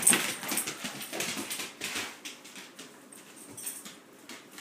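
Dog playing with a fabric toy on a wooden floor: a run of short scuffling, rustling sounds, loudest right at the start, fading after about two seconds to faint scattered clicks.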